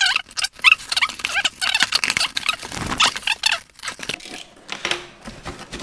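Packing tape squealing and ripping as it is pulled off a cardboard shipping box, mixed with scrapes and knocks of the cardboard. The tearing stops a little under four seconds in, leaving quieter rustling of the box flaps.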